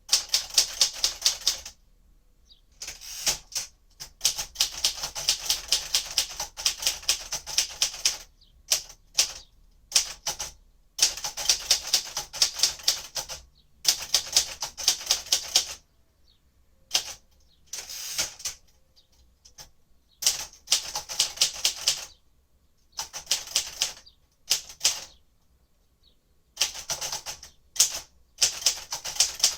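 A 1957 Royal Aristocrat manual typewriter being typed on: runs of quick, sharp keystroke clacks in bursts a few seconds long, broken by short pauses.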